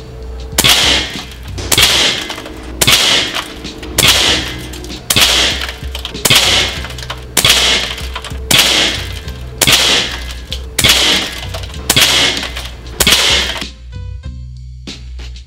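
RAW HM1000x LRT .25-calibre PCP air rifle firing twelve shots, about one a second, each with a short ringing tail, over background music.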